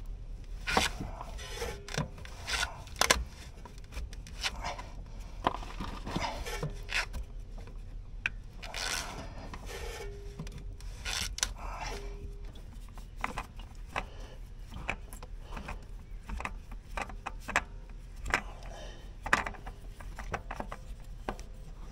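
Hand twisting a tight spin-on oil filter off a Polaris Ranger 800 EFI engine: rubbing and scraping against the filter canister and nearby parts, with scattered sharp clicks and knocks.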